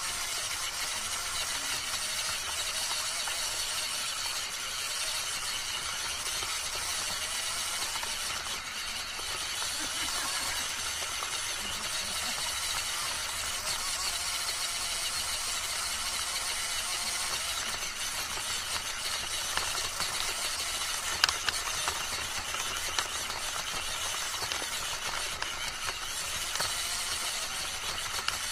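Radio-controlled car's drivetrain, its motor and gears whirring steadily as it drives over dirt and grass, with a few sharp clicks about two-thirds of the way in.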